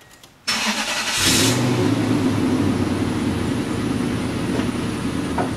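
2001 Toyota Tundra's engine starting about half a second in, then idling steadily.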